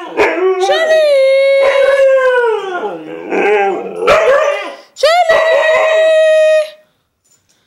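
Siberian husky howling in a series of long notes that slide up and down in pitch, with short breaks between them. It stops about a second before the end.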